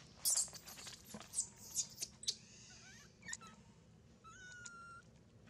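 Newborn long-tailed macaque squealing while its mother handles it roughly: a quick run of short, high, falling cries in the first two seconds, then a few longer cries.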